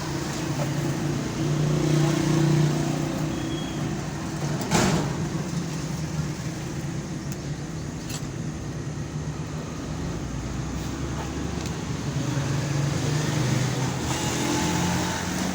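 Motor traffic passing steadily, swelling twice as vehicles go by, with two sharp knocks, one about five seconds in and one about eight seconds in.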